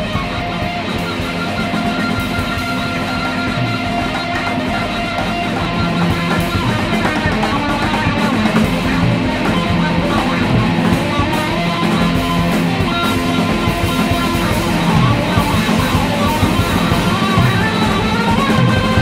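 A guitar and drum kit duo playing free-improvised rock, dense and sustained, growing a little louder about six seconds in.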